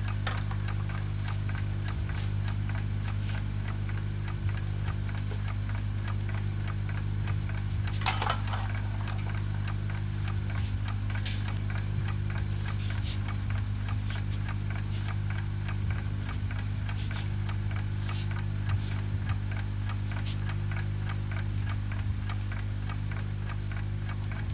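Faint, steady ticking and small clicks over a constant low hum, with a brief louder clatter about eight seconds in.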